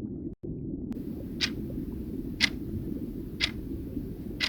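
Countdown clock sound effect ticking once a second, four ticks starting about a second and a half in, over a steady low rumbling background.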